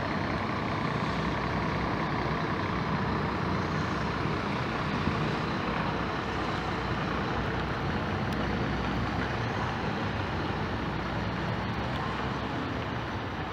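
A bus's diesel engine running steadily, an even low rumble with no sharp events.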